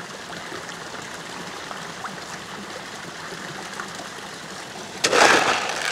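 Steady running water at a trout pond, with a louder burst of noise near the end.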